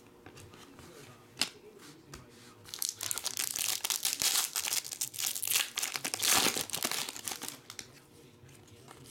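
Foil wrapper of a trading card pack being torn open and crinkled by hand. A single sharp click comes about a second and a half in, then a few seconds of loud crackling that dies down near the end.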